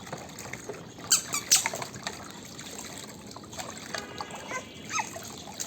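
Water splashing and trickling with small clicks and brief high squeaks as plastic toy vehicles are handled in it.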